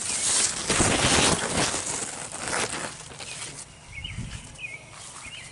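Large squash leaves rustling and brushing close against the microphone as it pushes through the plants, loudest in the first three seconds. A few faint bird chirps come about four seconds in.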